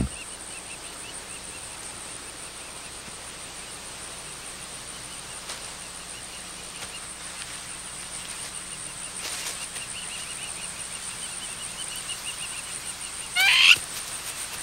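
Steady high-pitched insect drone of the savanna grassland, with faint chirping now and then. About a second before the end comes one loud, short plover alarm squawk, the warning call that alerts gazelles to a stalking cheetah.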